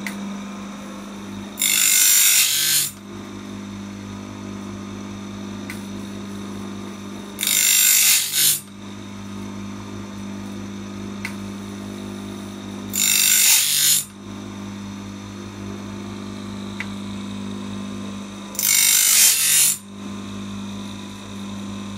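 Automatic bandsaw blade sharpener running: a steady electric motor hum, broken four times, about six seconds apart, by a loud burst of grinding about a second long as the wheel grinds the blade teeth. A faint click comes once between each pair of bursts.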